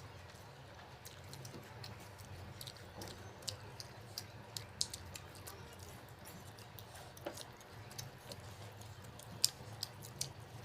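Eating sounds: soft chewing and wet lip smacks with scattered sharp mouth clicks, over a steady low hum.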